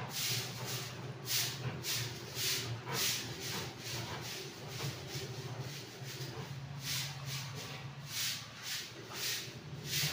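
Pencil scratching across a notebook page in short, irregular strokes, about one or two a second, over a low steady hum.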